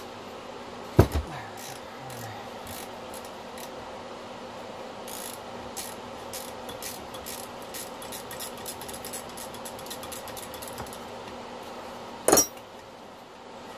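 Hand tools on a steel bolt: a sharp metal knock about a second in, then a long run of quick ratchet wrench clicks as the bolt is turned. Near the end comes a loud metallic clatter with a brief ring as a wrench is dropped among the others on the bench.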